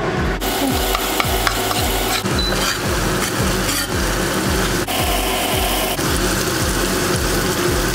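Chopped spring onions sizzling in hot oil in a stainless steel wok, the sizzle starting about half a second in as they hit the oil, with a metal ladle scraping and stirring them around the pan.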